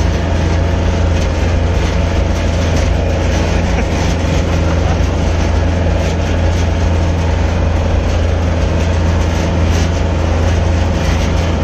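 Tractor engine running steadily under load, heard loud and close from the tractor itself as it tows a trailer: a constant low hum with a dense rattly noise on top.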